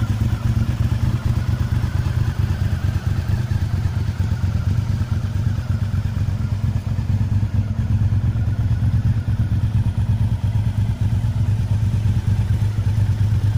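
Honda VTR1000F FireStorm's 90-degree V-twin engine idling steadily, with a fast, even, pulsing beat and no revving.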